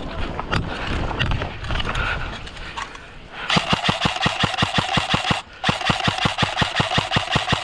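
Rustling movement, then an airsoft rifle firing two long bursts of rapid shots, about eight a second, with a short break between them.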